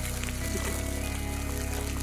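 Background music with sustained chords that change about half a second in.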